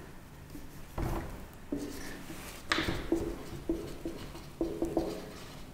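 Marker pen writing on a whiteboard in a series of short strokes, one about every half second.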